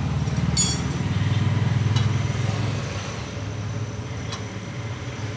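Low, finely pulsing rumble of a motor vehicle's engine running nearby, fading from about halfway. A sharp metallic clink comes about half a second in, and a few light ticks follow.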